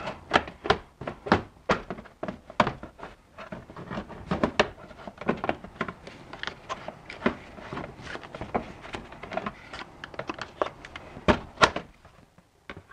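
Plastic wheel-arch liner and front bumper trim of a BMW E46 being bent, pulled and pried with a screwdriver: a run of irregular plastic clicks and knocks, several a second, with two louder knocks near the end.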